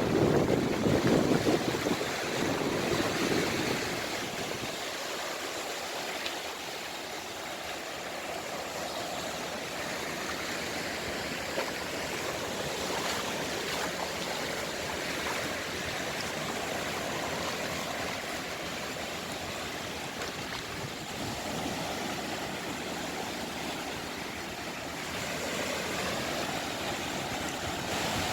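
Sea waves breaking and washing ashore: a steady rushing hiss, fuller and louder in the first few seconds.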